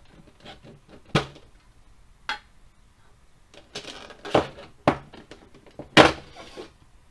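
Metal Pokémon card tin being pried open by hand: scattered sharp clicks and scrapes of the tin lid being worked loose, the loudest click about six seconds in.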